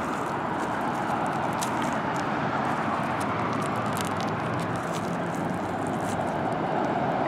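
Steady rush of distant road traffic, with faint scratchy clicks from a gloved hand rubbing soil off a freshly dug-up object.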